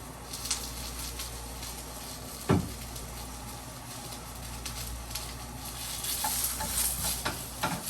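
Food sizzling in a frying pan, with one sharp knock about two and a half seconds in and a few light clicks near the end.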